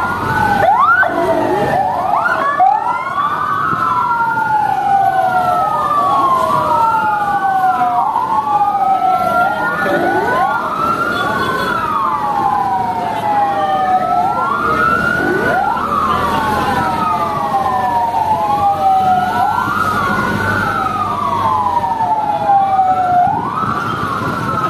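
Several fire truck sirens wailing at once, out of step with each other. Each rises quickly in pitch and glides more slowly back down, about every four seconds, with engines running low underneath.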